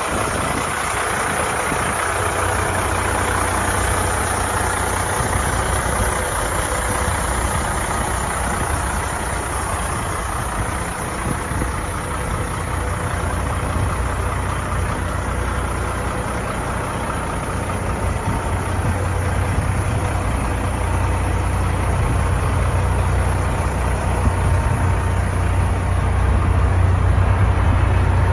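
1998 Ford F800 truck's diesel engine idling steadily, its low hum growing a little louder near the end.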